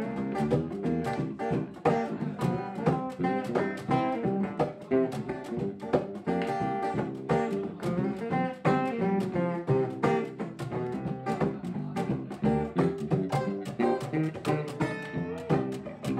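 Live band playing an instrumental stretch of a song, led by guitar with quick plucked notes over a bass part.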